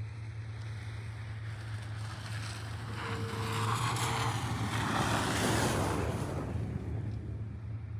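Jeep Wrangler driving past close by on packed snow. Its engine and tyre noise swell from about three seconds in, are loudest around five to six seconds, then fade, over a steady low hum.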